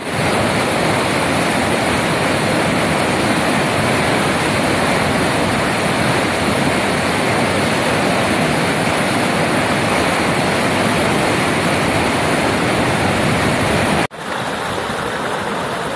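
Floodwater rushing and churning across a road: a loud, steady rush of turbulent water. About 14 seconds in it cuts off abruptly and gives way to a quieter, steady rush.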